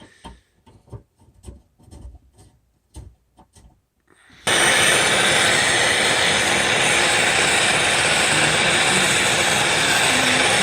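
A dozen or so light, irregular taps and clicks on the copper pipe, then about four seconds in a soldering torch flame comes on suddenly with a loud, steady hiss.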